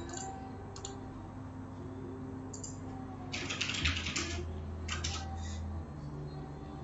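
Computer keyboard and mouse clicks: a few scattered clicks, then a quick run of typing about three seconds in, over a low steady hum.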